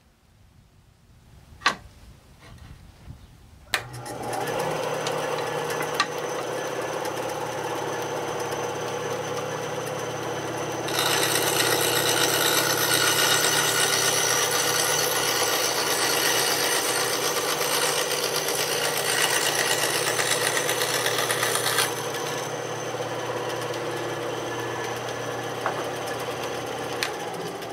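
Ryobi BS904G 9-inch benchtop bandsaw switched on with a click a few seconds in, its motor then running steadily. For about eleven seconds in the middle the blade cuts a piece of scrap wood, adding a loud rasping hiss over the motor; then it runs free again and begins to wind down at the very end.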